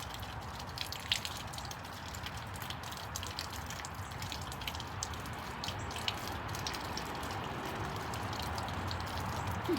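Garden hose running steadily, its water splashing and spattering over a peach being rinsed under it.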